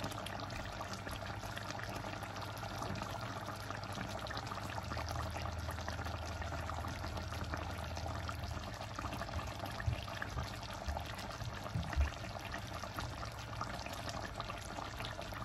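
Ginataang manok, chicken and liver in coconut-milk sauce, simmering in a wok: a steady bubbling, with a couple of small knocks in the second half.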